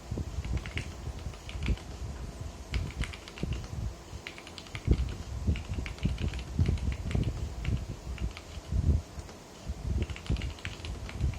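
Typing on a plateless 60% mechanical keyboard in a Lego case with stock Gateron Yellow linear switches: rapid, irregular keystrokes with a deep, thocky bottom-out and lighter clacks on top, in flurries with brief pauses.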